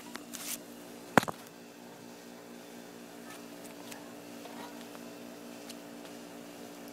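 A single sharp knock about a second in, from the phone being set down on the concrete pool deck, over a steady low mechanical hum.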